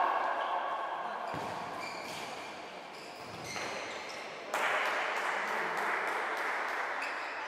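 Play sounds of an indoor futsal game in a sports hall: short high squeaks and knocks of the ball, with a sudden rise of noisy hall sound about halfway through that fades near the end.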